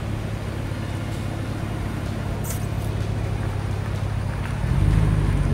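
Vehicle engine idling with a steady low hum; it rises in level and pitch near the end.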